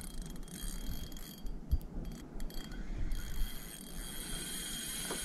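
Fishing reel being wound in, its mechanism clicking and whirring steadily, as a small koheru bait fish is brought up on the line.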